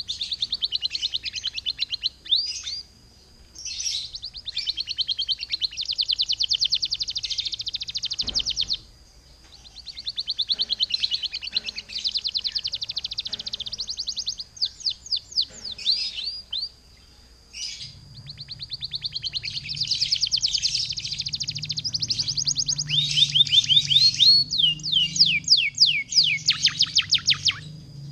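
Domestic canary singing full song: long, rapid rolling trills in phrases broken by short pauses, with a run of fast falling notes near the end.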